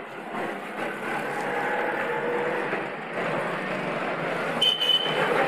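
Steady street background noise, the hum of passing traffic, with a brief high beep near the end.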